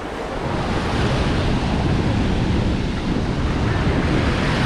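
Ocean surf breaking and washing up the shore, a steady rushing, with wind buffeting the microphone.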